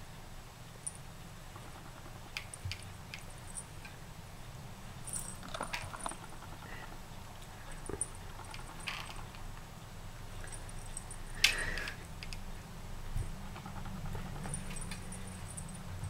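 Scattered light clicks and rattles as a cat bats at and bites the aerial of a toy remote control, with one sharper clack about two-thirds of the way through.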